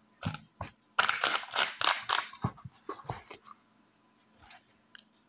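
Metal spoon scraping and clicking against a small plastic cup, with a quick run of strokes about a second in and a few scattered clicks after.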